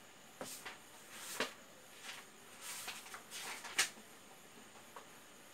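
Faint, scattered handling sounds: light clicks and brief rustles, with the two sharpest ticks about a second and a half and nearly four seconds in.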